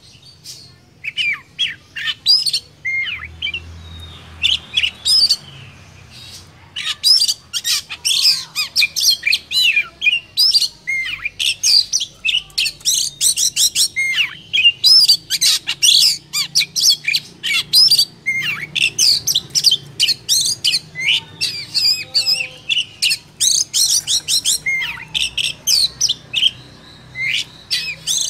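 Oriental magpie-robin singing a fast, varied run of sharp whistles, chirps and harsh notes. The notes come sparsely for the first few seconds, then densely. This is the full song used as a lure to stir other magpie-robins into singing.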